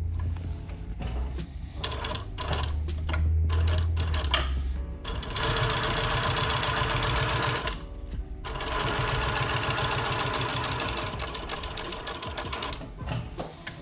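Industrial post-bed sewing machine stitching leather: a few slow, separate stitches at first, then two runs of fast, continuous stitching with a short stop between them, ending in a few single stitches.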